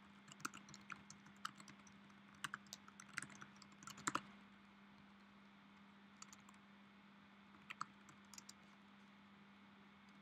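Faint typing on a computer keyboard: quick, irregular keystrokes for the first four seconds or so, then a few scattered ones, over a faint steady hum.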